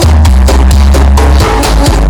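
Loud electronic dance music with a heavy, booming bass line and a steady beat, played through a huge 'sound horeg' sound system.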